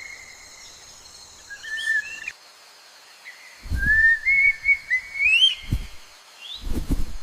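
Bird-like whistled calls: short clear notes that slide upward, one longer phrase climbing in steps, with a few low thumps among them.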